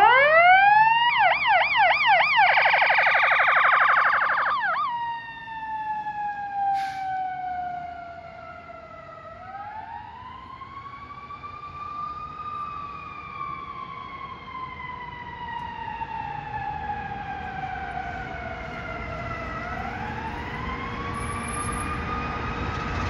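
Fire engine's electronic siren winding up, then cycling rapidly up and down in the priority tone for about four seconds, then dropping into a slow wail that rises and falls twice. It is loud at first and fades as the engine moves away.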